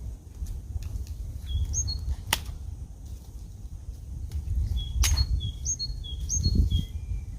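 Small birds chirping in short, high, repeated notes over a steady low outdoor rumble, with two sharp cracks about two and five seconds in.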